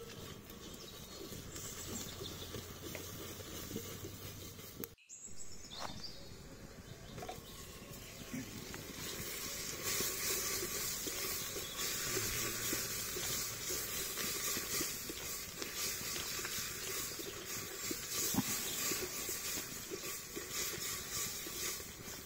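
Chicken curry simmering with a steady hiss in a clay pot over a wood fire, a wooden spoon stirring it with a few light knocks. The sound drops out briefly about five seconds in and is louder from about ten seconds in.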